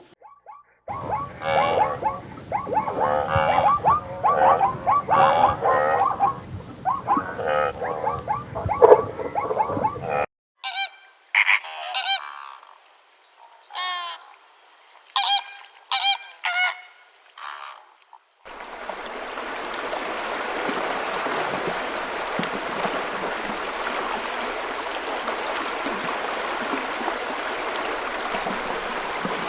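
A flock of geese honking, many overlapping calls for about ten seconds, followed by a few separate, sharper calls with pauses between them. After an abrupt cut, a steady rush of running water from a stream fills the rest.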